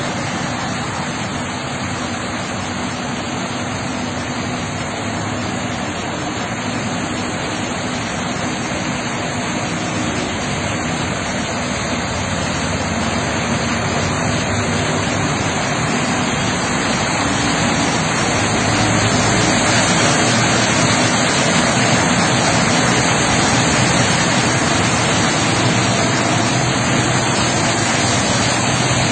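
Heavy monsoon rain makes a steady hiss, with engines of vehicles driving through a flooded road. It grows louder about two-thirds of the way through.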